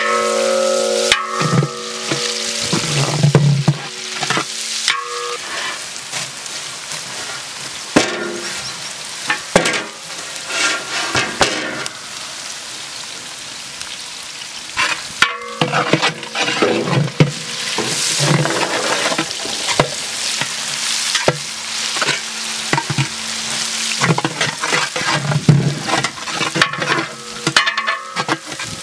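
Sliced onions sizzling in oil in a large metal pot, stirred with a long metal ladle that scrapes and knocks against the pot again and again.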